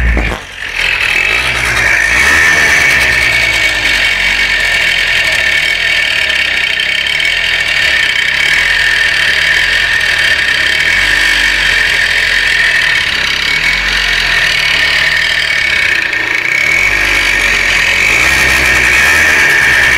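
Engine running steadily with a knocking noise whose cause the owner is trying to find.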